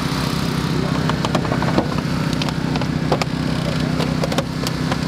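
Small engine of a hydraulic rescue-tool power unit running steadily, with sharp cracks and snaps from about a second in as a hydraulic spreader forces the car's door frame.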